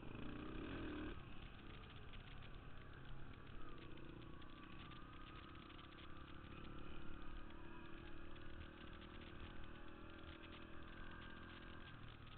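Dirt bike engine running at a low, steady speed as the bike rolls along slowly, heard through a helmet-mounted camera; its note drops near the end.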